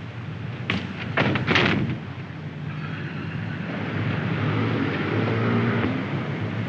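A car door being shut, a few sharp knocks about a second in, then a taxicab's engine running as the cab pulls away, its hum growing stronger in the second half.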